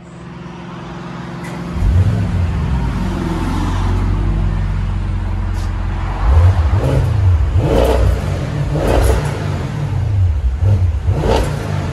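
A car engine running through its exhaust tips: a slow rev-up a couple of seconds in, then a series of quick throttle blips from about six seconds in, the exhaust note rising and falling with each.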